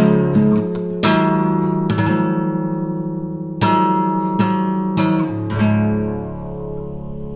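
Acoustic guitar music: a handful of slow strummed chords, each left to ring out and die away, the last fading near the end.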